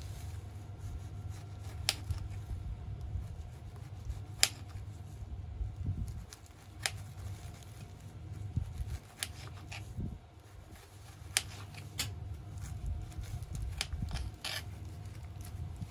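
A knife slicing strawberries on a glass cutting board, its blade clicking sharply against the glass every second or two, over a steady low background rumble.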